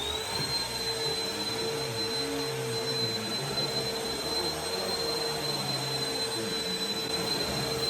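Vacuum cleaner running steadily on an area rug, with a constant high whine over a steady rushing noise; its motor finishes spinning up right at the start.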